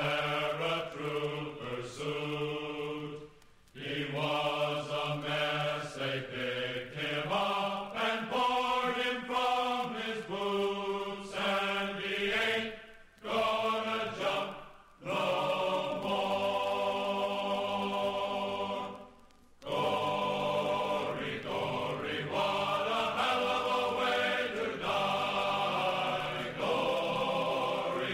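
Background music: a slow, chant-like choral piece of long held voices, breaking off briefly a few times.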